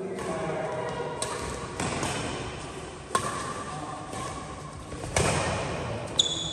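Badminton rally: sharp racket strikes on the shuttlecock, about five hits a second or two apart, with a short high squeak near the end.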